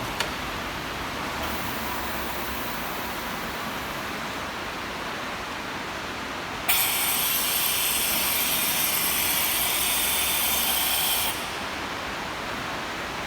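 Takeda Kikai TK24S-2000MV-10 machine tool running with a steady mechanical noise, a short click near the start. A little past the middle a loud high hiss starts abruptly, holds steady for about four and a half seconds, then cuts off suddenly.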